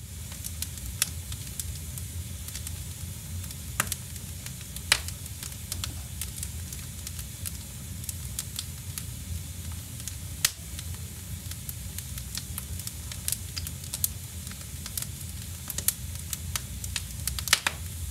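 Wood fire crackling in a fireplace, with sucuk (Turkish beef sausage) sizzling as it grills over the flames: a steady hiss and low rumble with scattered sharp pops.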